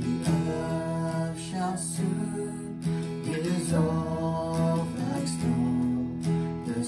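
Acoustic guitar strummed steadily, with a man and a woman singing a slow worship song over it.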